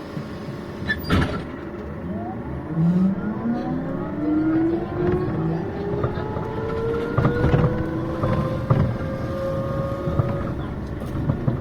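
City bus pulling away from a stop: a whine that climbs steadily in pitch for several seconds as the bus gathers speed, over a low rumble and rattling. A sharp knock about a second in.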